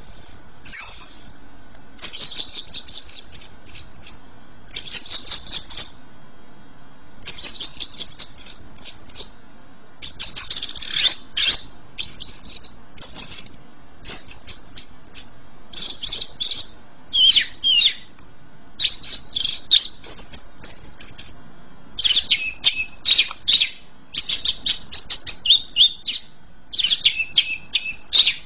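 Caged cucak ijo (green leafbird) singing in full voice: bursts of fast, high chattering notes and whistles, each phrase about one to two seconds long, broken by short pauses.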